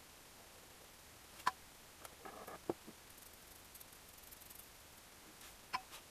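Small metal engine parts handled at an aluminium crankcase on a workbench: a sharp light click about one and a half seconds in, a short rustle with another click soon after, and a last click near the end, over faint room tone.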